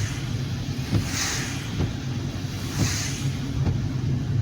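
A car driving in the rain, heard from inside the cabin: a steady low road rumble, with a soft swish about every one and a half to two seconds.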